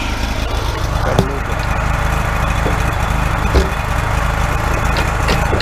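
Wood-Mizer LT40 hydraulic sawmill's engine running steadily at idle, with two short knocks about a second in and midway through as a board is shifted to sit flat.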